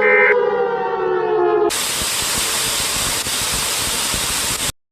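A civil defense siren winding down with a slowly falling pitch, cut off about 1.7 seconds in by loud, even static hiss. The static lasts about three seconds and stops abruptly, leaving silence.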